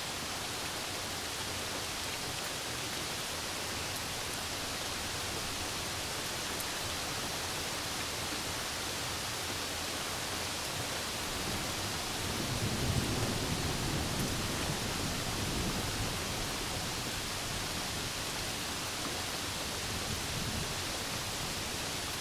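Steady rain hiss, with a low rumble of thunder swelling about halfway through and fading a few seconds later.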